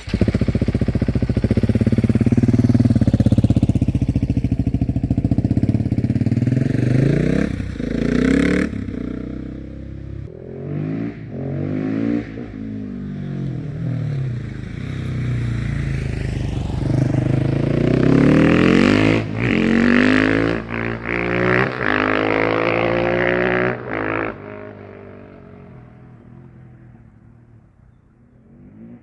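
KTM 690 SMC R's single-cylinder engine with a de-catted Leo Vince exhaust, revved hard over and over, its pitch rising and falling, with a few sharp cracks between revs. In the last few seconds it drops back to a much quieter, low running.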